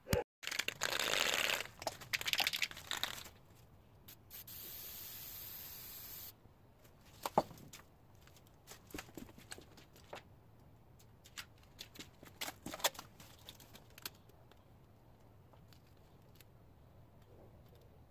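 Tape pulled off a roll in loud rasping tears for about three seconds, then a spray paint can hissing steadily for about two seconds, followed by a scatter of light clicks and handling noises.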